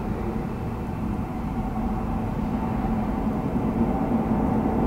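New York City Subway G train of R68/R68A cars approaching through the tunnel, its rumble on the rails growing gradually louder.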